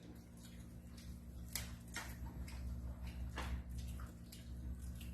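Crab shell being cracked and broken apart by hand while eating: a few separate sharp clicks and cracks.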